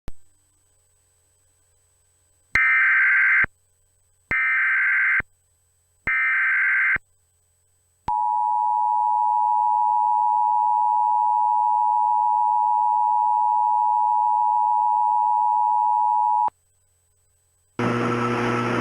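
Emergency Alert System broadcast opening: three one-second bursts of screeching SAME header data, then the two-tone attention signal held steady for about eight seconds. An announcer's voice starts the alert message near the end.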